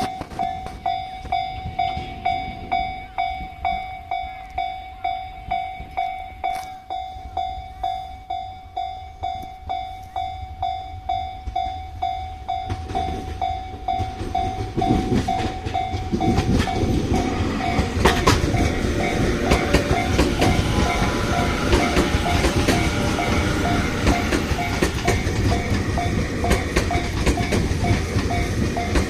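Japanese level-crossing warning bell ringing in a steady, regular rhythm. About halfway through, a Tobu Railway train comes through with a rising rumble and wheels clattering over the rail joints, while the bell keeps ringing over it.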